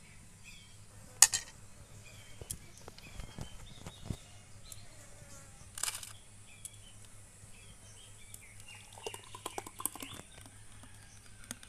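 Scattered clinks of steel and glass, a sharp one about a second in, as a spoon works in a steel mixer jar and drinking glasses are set out on a tray, then thick mango lassi being poured from the steel jar into a glass near the end. Faint bird chirps sound in the background.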